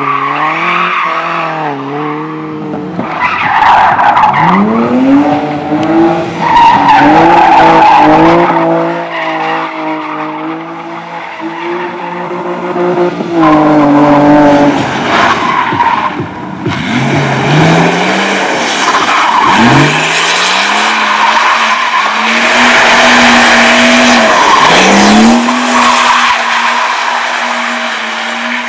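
Slalom race car driven hard: the engine revs up and drops back at several gear changes while the tyres squeal and skid through the turns, the squeal strongest in the second half.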